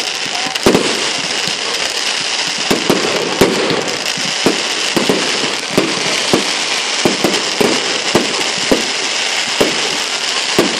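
Fireworks fizzing with a steady hiss, with sharp cracks and pops about once or twice a second.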